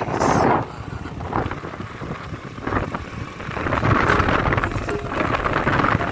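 A road vehicle on the move: engine and road noise full of irregular rattling knocks, with wind on the microphone, growing louder about four seconds in.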